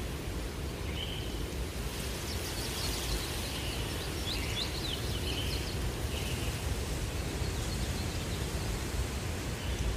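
Outdoor ambience: a steady low rumble with a few faint, short, high bird chirps scattered through it, including a quick run of them about four to five seconds in.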